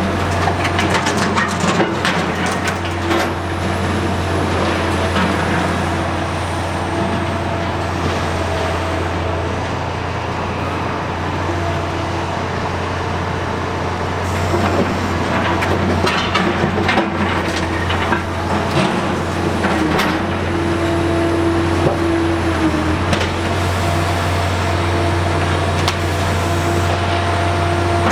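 Liebherr R 960 high-reach demolition excavator's diesel engine running steadily with a constant hydraulic whine, which rises briefly about three quarters of the way through. Scattered cracks and clatter of breaking building material come and go, thickest near the start and in the middle.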